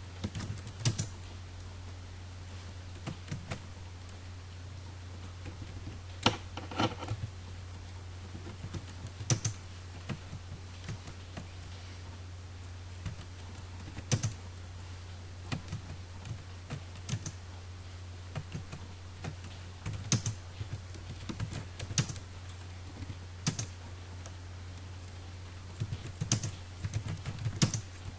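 Computer keyboard being typed on at an uneven pace: single key clicks and short runs of keystrokes with pauses between them, over a steady low electrical hum.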